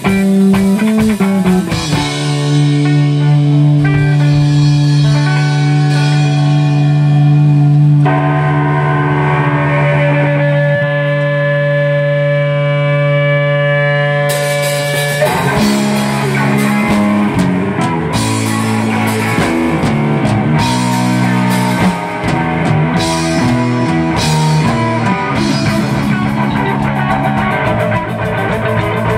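Live rock band with electric guitar, bass guitar and drum kit. After a short burst of playing, a chord is held and rings on without drums for over ten seconds, then the full band with drums comes back in about halfway through.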